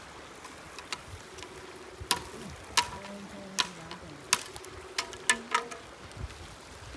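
Wood fire crackling, with about eight sharp, irregular snaps and pops over a low hiss.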